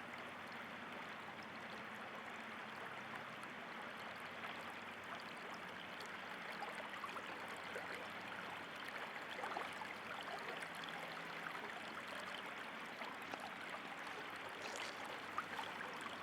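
Water of a small stream running steadily, a continuous even rushing and trickling.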